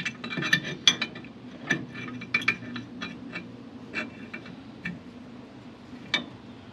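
Irregular metallic clicks and clinks of hand tools working at a stuck fuel petcock. They come in a quick cluster over the first couple of seconds, then a few scattered clicks.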